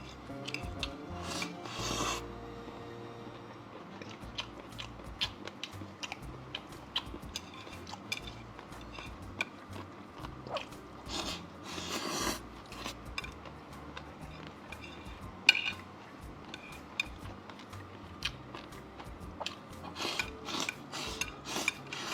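Close-miked eating: irregular chewing and biting noises with small crunches and clicks, over quiet background music.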